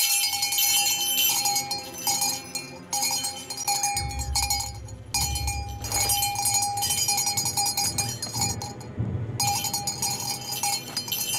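Hand-held metal ritual bell shaken, ringing over and over in bursts. A low rumble joins about four seconds in.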